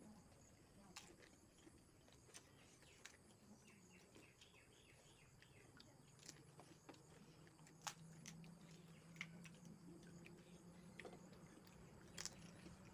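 Near silence: faint scattered clicks and a low hum that sets in about halfway through.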